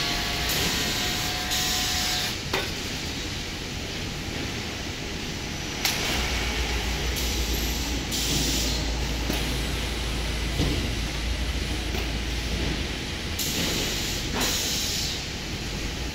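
Machinery of an automatic ceiling-board packaging line running: a steady mechanical din broken by five short hisses and a few sharp clunks, with a deep hum that comes in about six seconds in and eases off a little before the end.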